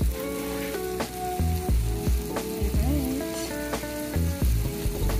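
Background music with a steady beat, over the sizzling of roast potatoes fresh out of the oven in hot butter and duck fat.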